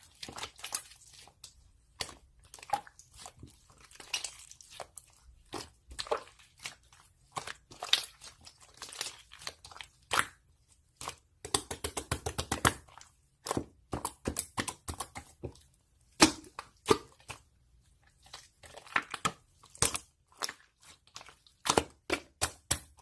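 Irregular sharp clicks and crunches close to the microphone, with a fast rattling run of clicks about halfway through.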